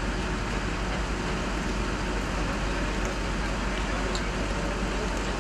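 Steady outdoor street noise: a continuous low rumble with hiss, with no distinct events.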